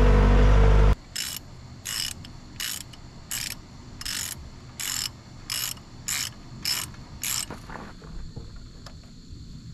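An engine running steadily cuts off abruptly about a second in. It is followed by a hand ratchet wrench clicking in short bursts, about eleven return strokes roughly every 0.6 s, as a fastener is worked on the track loader.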